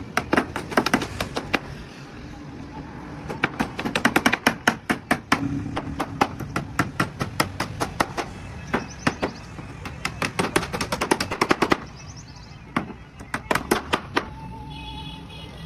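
Rapid bursts of sharp hammer blows on timber or steel shuttering formwork, several strikes a second, in runs broken by short pauses.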